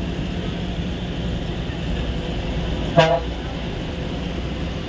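Bus engine and road noise running steadily inside the driver's cabin of a moving bus, with one short horn toot about three seconds in.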